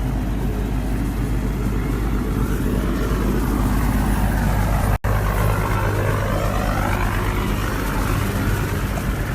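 Motor vehicle running with a steady low hum under a rushing hiss. The sound drops out for an instant about five seconds in.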